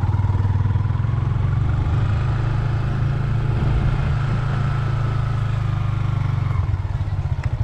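Motorcycle engine running steadily while riding, with a pulsing exhaust and a faint whine; it eases off near the end.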